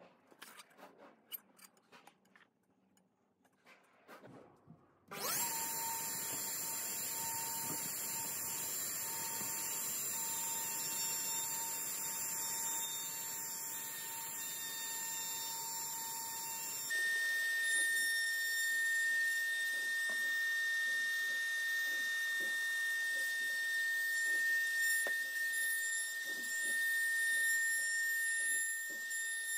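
Quiet handling clicks, then a table-mounted trim router switches on about five seconds in, spinning up to a steady high whine as a bearing-guided edge bit cuts along a plywood board. About halfway through, the whine changes abruptly to a different steady high tone with light knocks.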